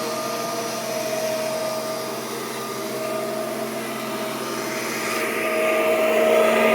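Kirby Generation 4 upright vacuum running steadily, a whine of several fixed tones over a rushing of air. It grows louder and brighter about five seconds in.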